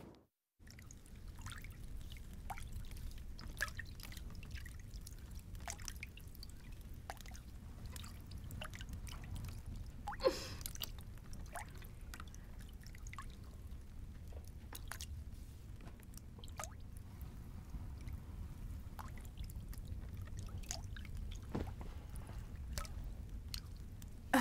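Water dripping and trickling in a bathtub, with small splashes as water is scooped and poured over a bather, over a low steady rumble. One brief louder sound comes about ten seconds in.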